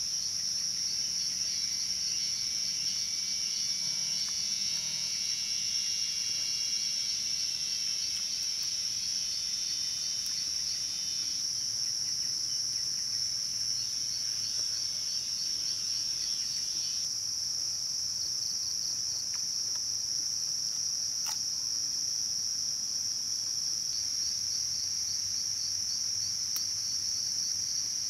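Night insect chorus: a steady, high-pitched trilling throughout. A lower, pulsing insect call joins it for the first eleven seconds or so and again briefly in the middle. There is one sharp click a little after twenty seconds.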